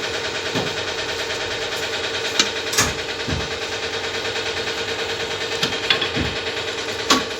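A steady, fast mechanical clatter runs throughout, with several sharp knocks and a few duller thumps spread through it, like work on metal parts.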